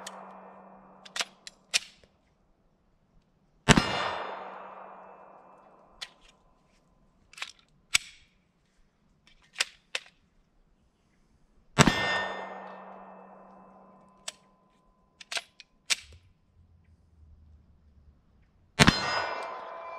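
Three single pistol shots from a Polymer80 PF940V2 Glock 17-pattern pistol, several seconds apart, each with a long echoing tail. Between the shots come sharp metallic clicks of the pistol being handled. The pistol is not cycling reliably: it is not feeding right, which the owner puts down to it needing to be broken in.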